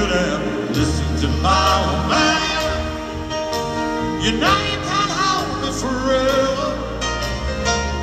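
Live band music with a male lead voice singing over piano, bass and drums. The sound is distant and echoing, as heard from high up in an arena.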